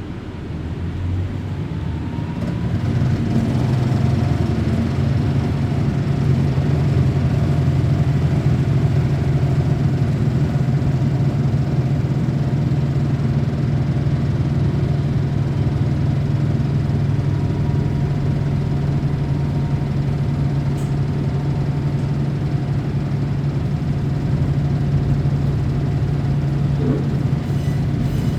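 Diesel railcar's engine heard from inside the car. It throttles up and grows louder over the first few seconds, then runs steadily under power with a steady low drone.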